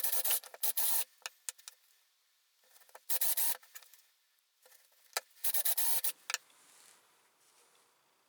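Wood being hand-filed or sanded in short spells of back-and-forth strokes, three spells with pauses and small knocks between: shaping a wooden plate for a bench vise jaw.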